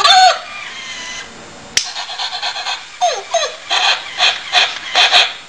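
Sound-activated plush toy dog playing electronic dog sounds through its small speaker: a yelp at the start, two falling whimpers about three seconds in, then a run of short barks. A single sharp click comes just under two seconds in.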